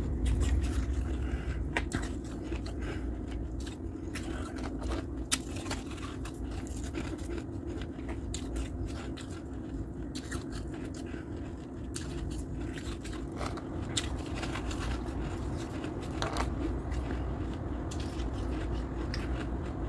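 Shaved freezer ice crunching and crackling, with scattered crisp snaps every second or two over a steady low background sound.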